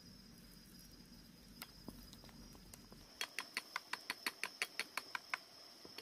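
Chopsticks beating flour batter in a metal bowl, clicking against the bowl about six times a second for around two seconds, starting about halfway through. A steady high insect drone runs underneath.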